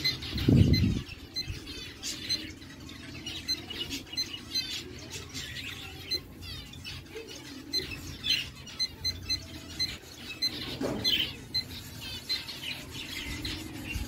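Aviary birds chirping, many short calls overlapping, with a low thump about half a second in and another about eleven seconds in.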